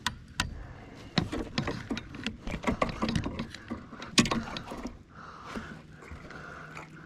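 Irregular clicks, knocks and rattles of gear being handled close to the microphone for about five seconds, then a steady hum.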